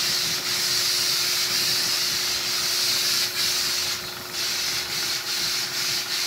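Compressed-air spray gun with a cup underneath hissing steadily as it sprays finish onto a wooden cabinet, letting up briefly about four seconds in.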